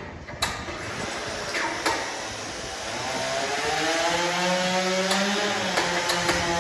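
A motor running steadily, its pitch climbing and then easing back down in the second half, with a few sharp knocks.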